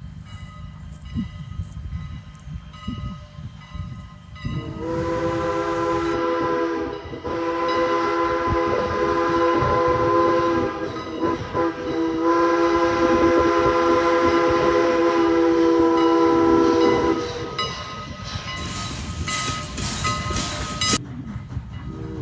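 A steam locomotive whistle sounds a chord of several tones at once in long blasts, from about four seconds in until about seventeen seconds, over the low rumble of the moving train. It then carries on fainter, and after a sudden cut another blast begins near the end.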